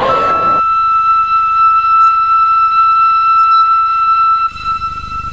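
Background music: one high, flute-like note held steady with no change in pitch. It drops in level for a moment about four and a half seconds in.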